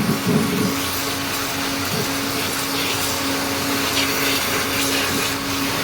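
Pressure washer running: a steady motor hum under the hiss of the water jet spraying washing-machine parts during deep cleaning.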